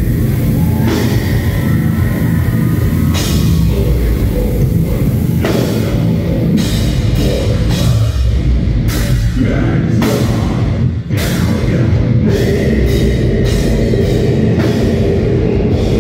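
Deathcore band playing live at full volume: dense heavy metal with pounding drums and repeated cymbal crashes, which drop out briefly about eleven seconds in.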